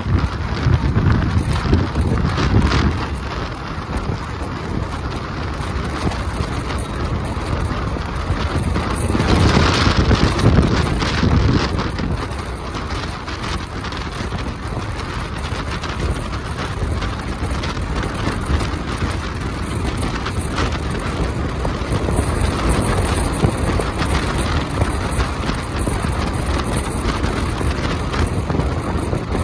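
Wind buffeting the microphone of a phone riding on a moving motorcycle, over steady road and motorcycle running noise. The buffeting swells in gusts, heaviest about nine to twelve seconds in.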